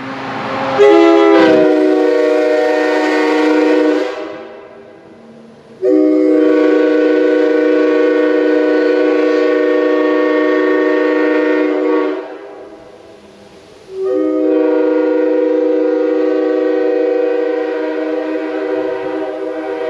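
Nathan Airchime K5H five-chime train horn (bells 1, 2, 3, 4 and 5) sounding its chord in three long blasts, the first sliding briefly in pitch as it comes on. Its number 5 bell has been machined back to factory specs, and the horn sounds in tune and nice and sharp rather than flat.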